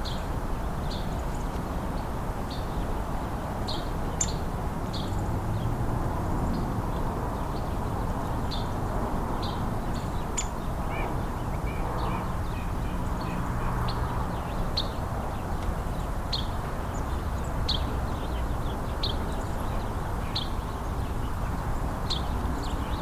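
Small songbirds giving short, high chirping call notes, roughly one a second, over a steady low background rumble.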